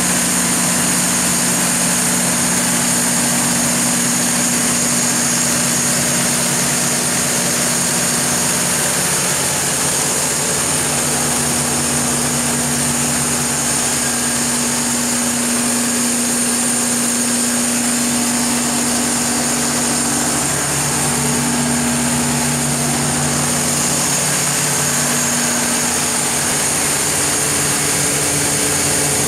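Mitsubishi S12A2 V12 diesel engine of a Kohler 760 kW generator set running steadily, with a low multi-tone hum and a high hiss over it.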